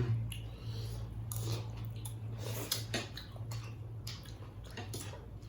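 Person chewing food during a meal, with a few light clicks of dishes and utensils, over a steady low hum.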